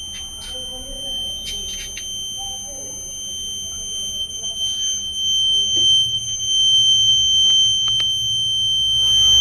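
Fire alarm set off by test smoke blown into a smoke detector, sounding one steady, unbroken high-pitched tone.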